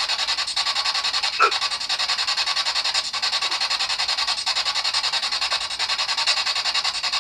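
Spirit box sweeping through radio stations: a steady, fast-chopping hiss of static, with a brief snatch of sound about a second and a half in.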